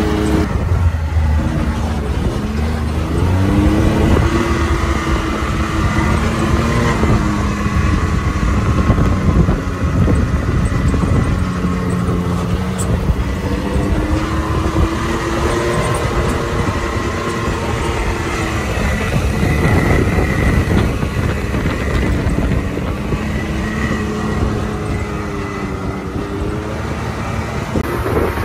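Can-Am side-by-side's engine running under way, its pitch rising and falling again and again with the throttle, over the steady rumble of tyres on a rocky dirt trail.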